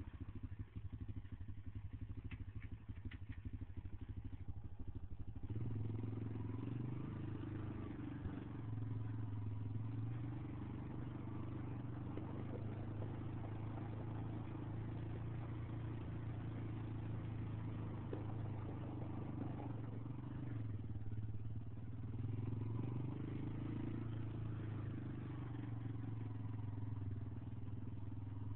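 Honda TRX250EX quad's single-cylinder four-stroke engine running. It idles for about the first five seconds, then gets louder as the quad is ridden, its note rising and falling with the throttle.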